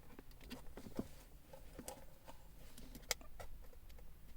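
Light handling noise of plastic wiring-harness connectors being fitted to a control module: scattered small clicks and rustles, with a sharper click about three seconds in.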